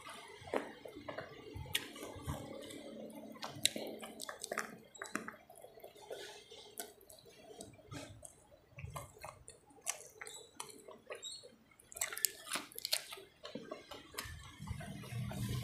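Close-up wet chewing and mouth smacking as rice and fish curry are eaten by hand, with many small irregular wet clicks from fingers picking at the fish.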